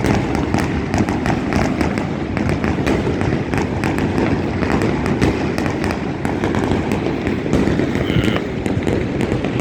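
Fireworks going off in great numbers across a city at once: a dense, unbroken stream of overlapping bangs and crackles over a steady low rumble.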